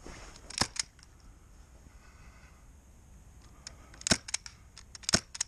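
Airsoft guns firing single shots as sharp cracks: two close together within the first second, then one about four seconds in and another about five seconds in.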